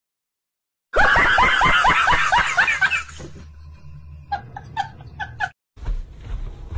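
Caracal giving a rapid run of short, repeated cries, about seven or eight a second for roughly two seconds, after a second of silence. A few short clicks follow.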